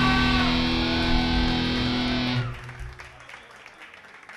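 Electric guitars and bass from a live metal band ring out a sustained closing chord, with high notes wavering and bending above it. The chord cuts off sharply about two and a half seconds in, leaving faint room noise.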